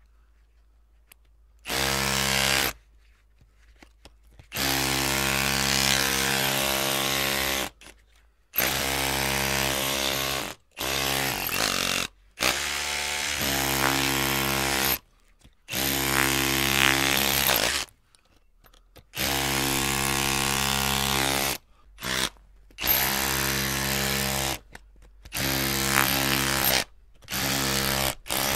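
Electric drill motor run in repeated bursts: about a dozen spells of one to three seconds at a steady whine, each stopping abruptly before a short pause.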